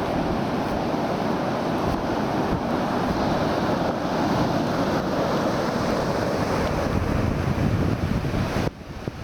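Wind buffeting the microphone over the rush of sea surf on a shore, a steady roar that drops suddenly near the end.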